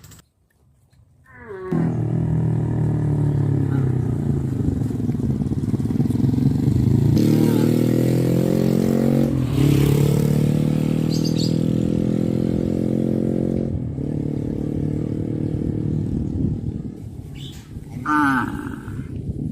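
Cattle mooing: several long, low, drawn-out moos follow one another with barely a break, starting about a second and a half in, then a short call near the end.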